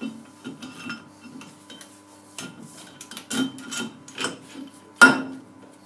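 Heavy steel fixture plate being slid and shuffled into position on a steel base plate over studs, metal scraping and clinking on metal, with one louder clank about five seconds in.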